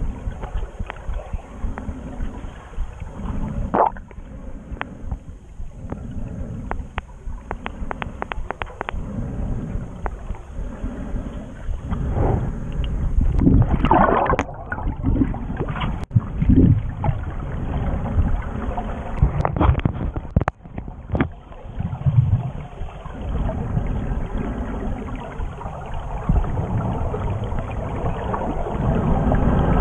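Muffled underwater sound through an action camera's waterproof housing while snorkelling: low water rushing that swells and fades about once a second at first, with scattered sharp clicks and crackles. It grows louder near the end as bubbles rise from a diver below.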